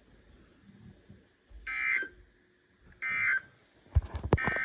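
Three short Emergency Alert System end-of-message data bursts (the 'NNNN' code) from a NOAA weather radio broadcast. Each burst lasts about a third of a second, about a second apart, and they mark the end of the test message. A few sharp clicks and a low thump come just before and under the third burst near the end.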